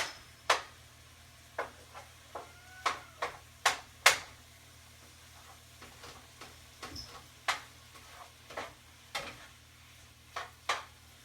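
Irregular clinks and knocks of dishes, pots and utensils being handled in a kitchen, some sharp and some soft, over a faint steady hum.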